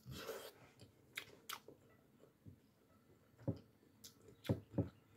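Close mouth sounds of a person eating rice and fish by hand: soft chewing with scattered wet smacks and clicks, the louder ones in the second half.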